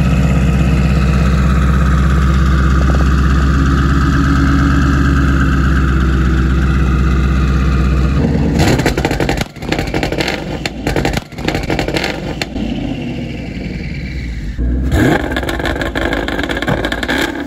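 Twin-turbocharged Coyote 5.0 V8 of a 2019 Ford Mustang GT, through a Corsa Xtreme catback exhaust, held at a steady rpm on its two-step launch limiter for about eight seconds. It then drops off into a string of sharp exhaust pops and bangs. Near the end there is a second short rev with more popping.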